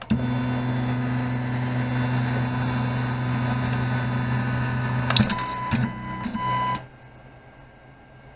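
AnyCubic Linear Plus delta 3D printer's stepper motors humming steadily as the carriages drive to home, then a few short high tones and clicks about five seconds in before the motors stop suddenly.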